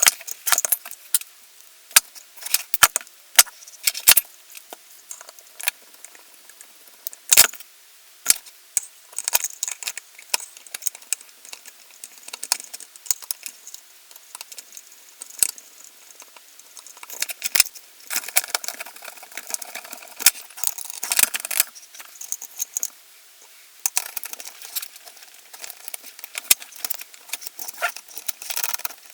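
Scattered clicks, taps and rattles of an airsoft MP5's parts being handled and fitted together during reassembly, with a few sharper knocks and denser bursts of rattling.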